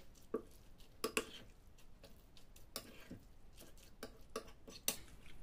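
A metal utensil stirring a wet grated-potato mixture in a ceramic bowl: faint, irregular clicks and scrapes against the bowl.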